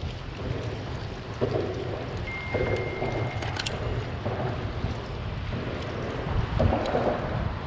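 Wind buffeting the microphone, a steady low rumble, with a thin high tone held for about a second a little over two seconds in.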